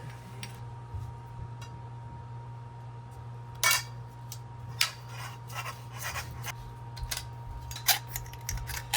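Copper pipe, fittings and a valve being handled and set against each other: scattered light metal clicks and clinks, the sharpest about three and a half seconds in, over a steady low hum.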